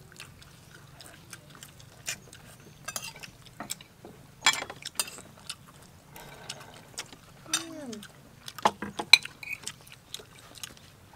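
Eating sounds: spoons clicking on plates and crunchy chewing of grilled chicken, heard as irregular sharp clicks and crunches.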